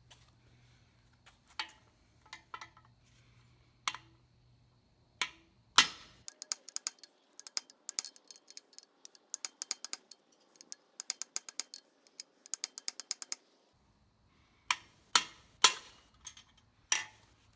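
Hammer taps on the end of a long socket extension driving an old camshaft bearing out of an Oldsmobile 350 Rocket V8 block, metal striking metal. A few single taps come first, then a quick run of about three or four a second, then a few more near the end as the bearing comes through.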